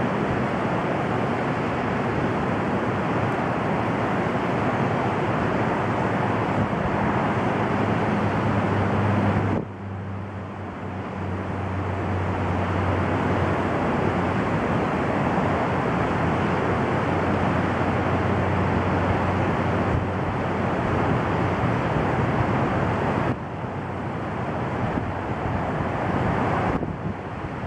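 Steady noise of interstate highway traffic, with wind on the microphone. The level dips abruptly about ten seconds in and again near the end.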